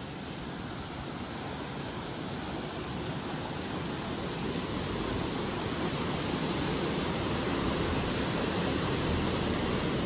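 A steady rushing noise with no distinct knocks or tones, slowly growing louder.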